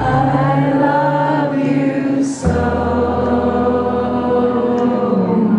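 Many voices hold long sung notes together in a choir-like chord over a low bass note. The chord changes to a new one about two and a half seconds in.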